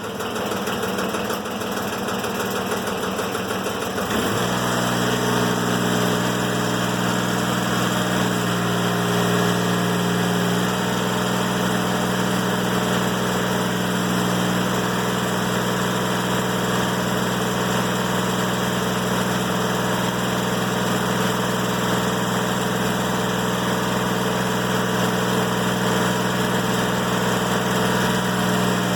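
Diesel engine of a Timberking 1400 sawmill running: it comes up to speed about four seconds in with a quick rise in pitch, then runs steadily at high speed.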